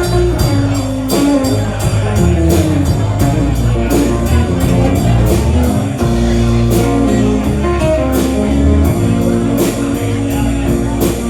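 A band playing an instrumental break without vocals: guitar and bass over a steady, even drum beat.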